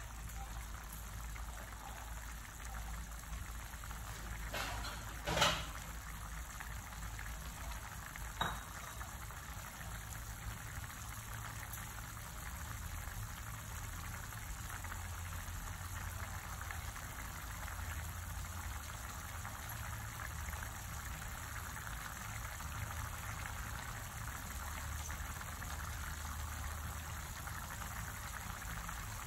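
Tomato and minced-meat sauce simmering in a wide pan, bubbling steadily, with two brief sharp clicks about five and eight seconds in.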